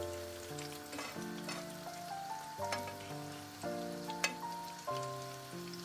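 Breaded chicken nuggets frying in hot oil in a pan, sizzling with scattered sharp crackles. Background music of held notes changing about every half second plays over it.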